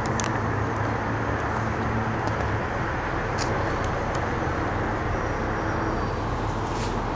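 Steady hum of distant city traffic, with a few faint ticks.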